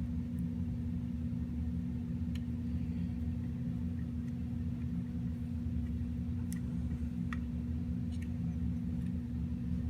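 A steady low hum with a constant tone runs throughout, with a few faint, sharp clicks scattered through it as a small screw is turned in with a hand screwdriver.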